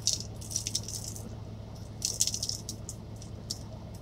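A shaker bottle of dry seasoning blend being shaken over a tray of vegetables, rattling in quick shakes. There are two bouts, one at the start and another about two seconds in.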